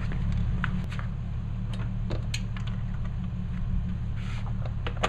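Scattered light clicks and knocks of hand tools and parts being handled during bumper removal, over a steady low hum.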